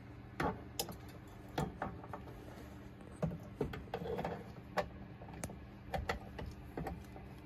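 Small screwdriver clicking and scraping against screws and metal parts inside an inverter cabinet: about a dozen sharp, irregular ticks, over a faint steady hum.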